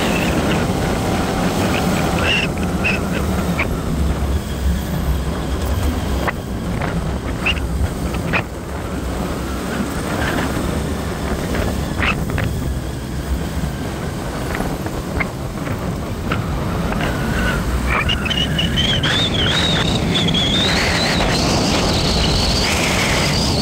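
Vehicle's engine and road noise from inside a moving car, a steady low rumble with occasional small clicks and knocks. About three quarters of the way through, a high wavering whistle-like tone joins in and carries on to the end.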